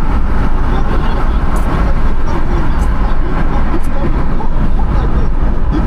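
Steady rumble of road and engine noise inside a moving car's cabin, deep and loud throughout, with a few faint small ticks.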